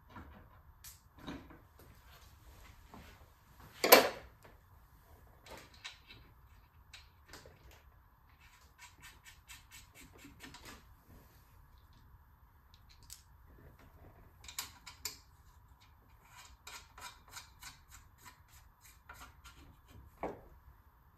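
Ratchet wrench clicking in short runs of quick, even clicks, about six a second, among scattered metal clinks and one sharp knock about four seconds in, as tools work on bolts around the turbocharger.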